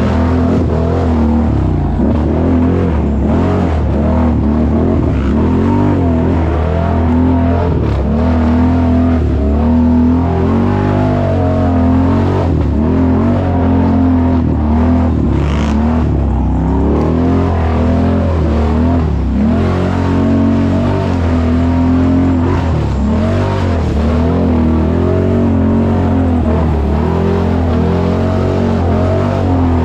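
ATV engine revving up and down again and again under a steady low drone, the pitch rising and falling every second or two.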